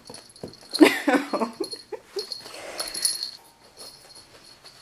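Cavapoo puppy whimpering, with a run of short whines falling in pitch about a second in.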